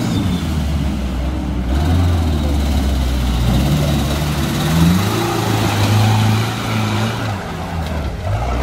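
An off-road 4x4's engine revving hard under load as it churns through deep mud and climbs a bank, its pitch rising and falling several times.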